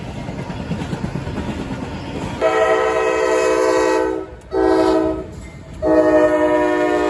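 Amtrak Auto Train passing with a low rumble, then its locomotive air horn sounds a chord: a long blast about two seconds in, a short blast, and another long blast held to the end.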